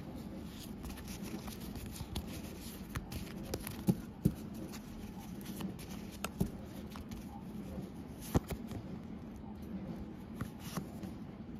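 A stack of die-cut paper fairy sticker cards handled and flipped through by hand: soft paper rustling with scattered sharp taps and clicks, the loudest about four seconds in and again about two-thirds of the way through.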